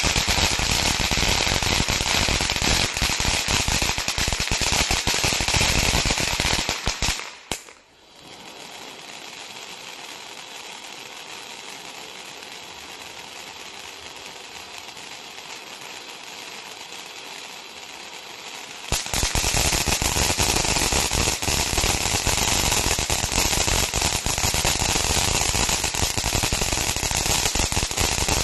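Piromax PXF214 fountain battery (Cat. F2 fireworks) burning. For about seven seconds its fountains give loud, dense crackling. After a brief dip, one fountain sprays with a quieter, steady hiss for about eleven seconds, and loud crackling starts again about nineteen seconds in.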